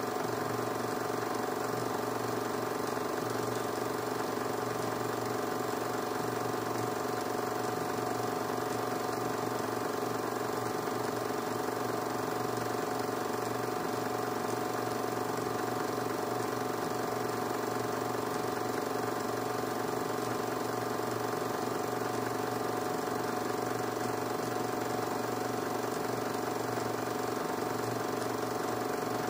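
A 16 mm film projector running: a steady mechanical drone with several fixed tones that does not change.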